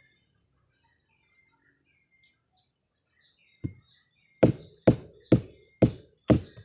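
Mallet knocking on the stalk of a sugar palm (aren) flower cluster, beaten to bring on the sap for tapping. Birds chirp faintly during a pause, then one knock comes a little past halfway and steady knocks follow at about two a second.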